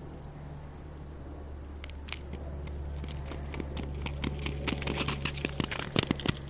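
Crunching, crackling steps on ice-crusted snow mixed with a light metallic jingle, starting about two seconds in and growing busier and louder toward the end, over a low steady hum.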